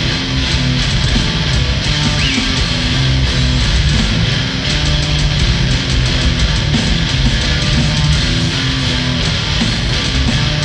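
Live instrumental heavy metal jam: electric bass and electric guitar playing a heavy riff over drums.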